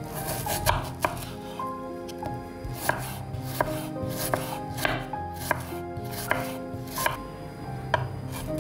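Chef's knife slicing an onion on a wooden cutting board, the blade knocking sharply on the board about once or twice a second; near the end it starts on a garlic clove.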